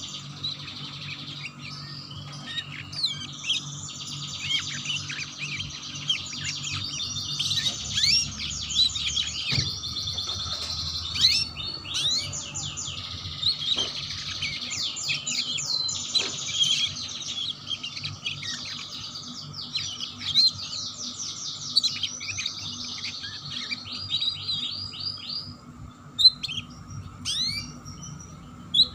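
Domestic canary singing a long, fast 'ngeriwik' song: rolling trills of rapidly repeated notes, one run straight after another, breaking into a few scattered chirps near the end.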